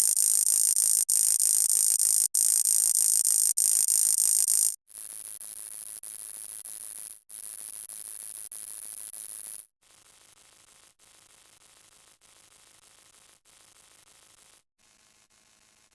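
Electronic static-like hiss sound effects in bursts about a second long, each cut off by a short break, with a pair of longer bursts in the middle. The hiss drops in loudness in steps, about every five seconds, until it is faint near the end.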